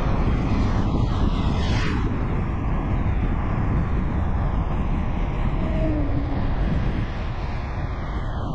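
Steady road noise from a moving vehicle: a dense, even rumble with no breaks.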